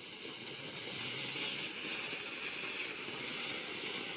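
Anar (flowerpot fountain firework) burning: a steady hissing rush of sparks that grows louder over the first second and then holds. This is the fountain stage of a 2-in-1 cracker that has an anar and a bomb in one.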